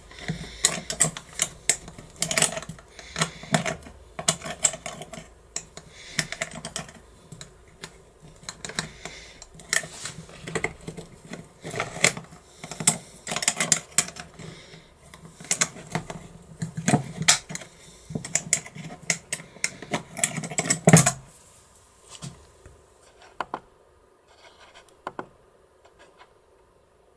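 Keys being tried one after another in the keyhole of a mortise bolt lock: rapid metallic clicking, rattling and scraping, with none of them fitting. The clatter stops about 21 seconds in, leaving only a few faint clicks.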